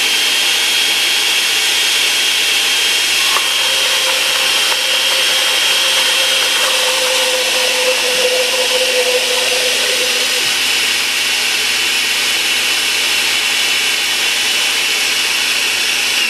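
Electric countertop blender with a glass jar running at steady speed, puréeing onions and garlic with a little oil into a sofrito. Its motor gives a loud, steady high whine over the churning, and winds down right at the end.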